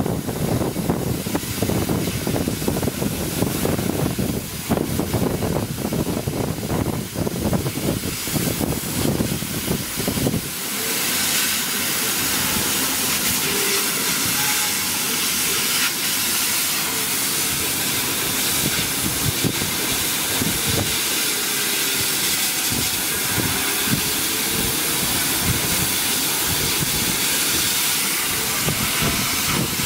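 150W CO2 laser cutter running while it cuts plywood: a steady hiss of air blowing through the cutting nozzle over a low machine rumble. About ten seconds in, the sound changes to a smoother, brighter hiss with much less rumble, with faint whines that rise and fall.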